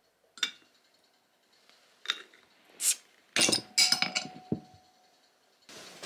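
Glass bottles and a wine glass clinking and knocking on a wooden table as they are handled and set down. There are single clinks in the first few seconds, then a quick cluster of knocks about three and a half seconds in, one of them ringing on briefly. Near the end a steady hiss begins.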